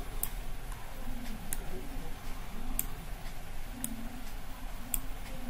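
Computer mouse clicking: about five sharp clicks roughly a second apart, over a faint steady hum.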